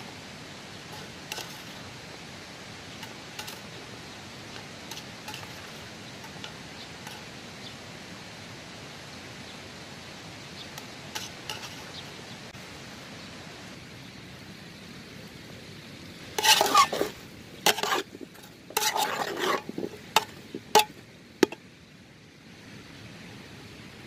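A metal ladle stirring and scraping in a metal cooking pot of meat and diced vegetables frying over a wood fire, with faint clinks over a steady hiss. About two-thirds of the way through comes a run of loud scrapes and clanks against the pot, ending in three sharp clinks.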